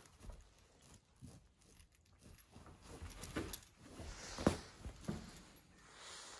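Labrador puppy chewing and pawing a knotted cloth toy on a cushion bed: irregular fabric rustling and scuffing with scattered clicks, the sharpest about four and a half seconds in, and the light jingle of the metal tag on its collar.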